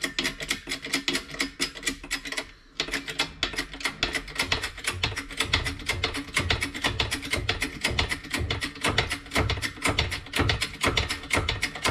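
Background music with a fast, steady beat. It breaks off briefly about two and a half seconds in, and a deep bass beat joins about four seconds in.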